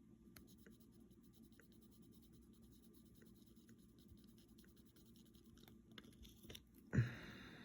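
Faint scratching and tapping of a pencil marking tick boxes on a paper checklist. Near the end a person briefly clears their throat.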